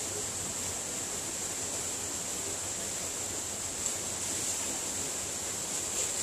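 Steady rushing of a rocky mountain stream, an even hiss with no break.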